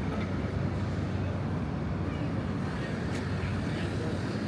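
City street ambience: a steady low rumble of passing traffic and engines, with a short faint tick about three seconds in.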